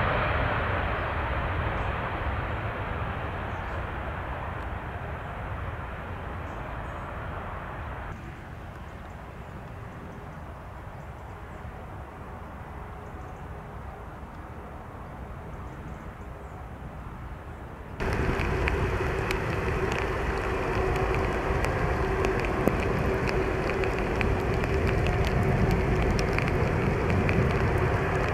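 Airbus A380 jet engine noise fading away as the aircraft moves off. A sudden cut drops it to a quieter rush, and about eighteen seconds in a louder steady rush with a steady hum starts just as suddenly.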